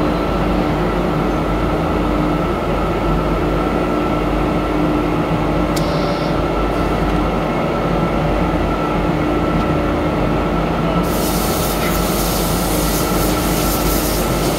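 Steady foundry machinery noise in a resin-sand core shop, with a constant hum and a higher steady whine. About eleven seconds in a loud hiss joins and carries on.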